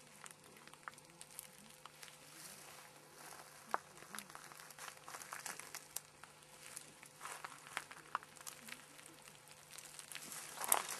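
Faint rustling and crinkling with scattered sharp clicks, and a brief louder rustle near the end.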